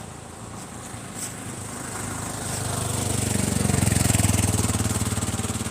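Small-engined auto-rickshaw (tuk-tuk) drawing near with a rapid putter, growing louder to a peak a few seconds in, then easing slightly as it passes.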